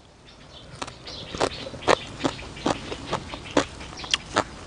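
Close-miked mouth chewing a mouthful of spicy green papaya salad: a run of wet, crunchy chewing clicks about twice a second, starting about a second in.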